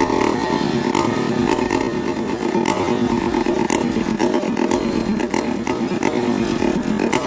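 Chainsaw engine running steadily at high revs, with frequent short sharp ticks over it.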